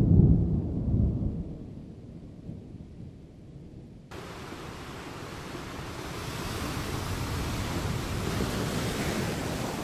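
A low rumble of thunder that fades away over the first couple of seconds, then, after an abrupt cut about four seconds in, a steady hiss of ocean surf with wind.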